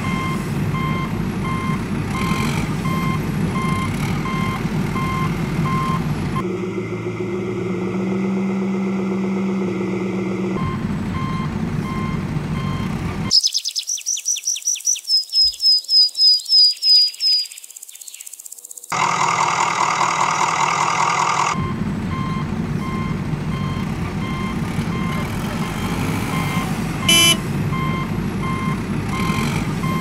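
Dubbed heavy-vehicle sound effect: a diesel engine rumbling with a reversing alarm beeping steadily. Midway the loop gives way to other effects, among them a run of rapid high chirps that grows louder, and then the engine and beeping return.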